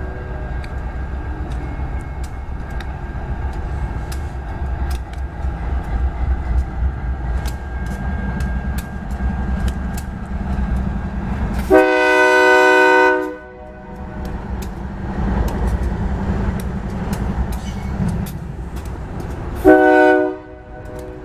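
GE AC44CW diesel locomotives running close past with a steady low engine rumble. The lead unit's air horn sounds a long blast about twelve seconds in and a short one near the end.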